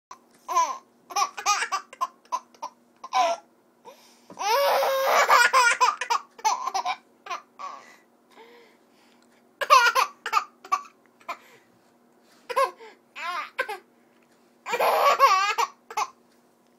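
Toddler laughing in repeated fits of high giggles, with longer, louder bouts of laughter about four seconds in and again near the end.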